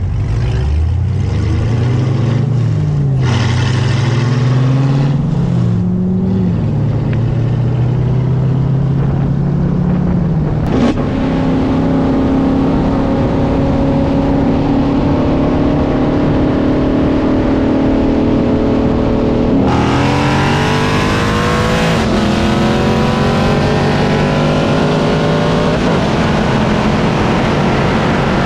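Modified V8 sports car at full throttle, heard from on board during a street roll race. The engine revs up and down at low speed, then holds a steady, slowly rising note. At about twenty seconds in it goes to wide-open throttle, pitch climbing hard with breaks for gear changes, over a growing rush of wind.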